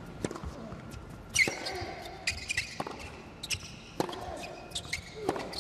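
Tennis ball struck back and forth in a rally on an indoor hard court: sharp racket hits and ball bounces about every half-second to second, the loudest about a second and a half in, with shoe squeaks on the court surface between them.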